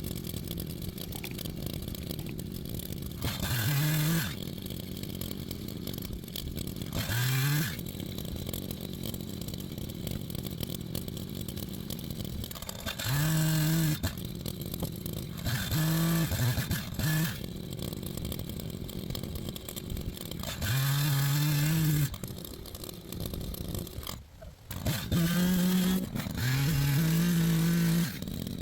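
Echo Timberwolf CS-590 two-stroke chainsaw idling, revved to full throttle about eight times for a second or so each, as it cuts through logs.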